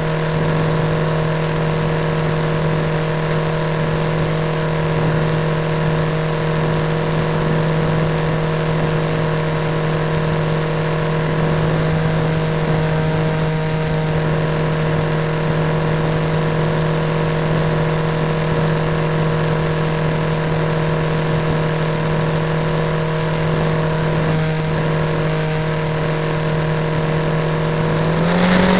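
Electric motor and propeller of an AXN Floater foam RC plane running steadily in flight, a constant whine over rushing air heard from a camera on the airframe. The pitch rises near the end as the throttle is opened.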